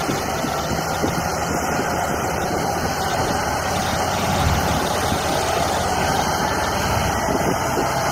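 Diesel farm tractor engine running steadily at low revs.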